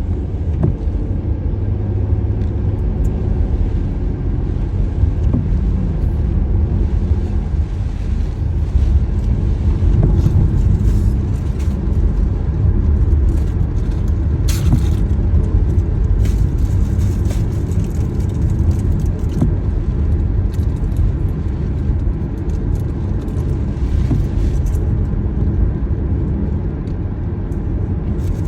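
Steady low rumble of a car on the move, with road and engine noise and a few faint ticks over it.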